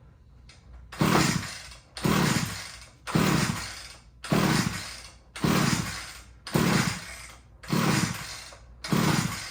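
Eight pull-starter strokes on a Wild Badger multi-tool trimmer's small gas engine, about one a second, each a quick whirr of rope and engine turning over that winds down again without running. The engine fails to start; the first pull sounded like it wanted to start.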